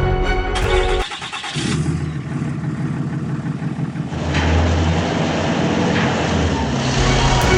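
Heavy vehicle engine starting and running with a steady rumble that grows louder about four seconds in.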